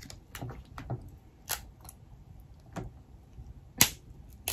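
Cooked snow crab leg shells cracking and snapping as they are broken apart by hand: about six sharp cracks at irregular intervals, the loudest near the end.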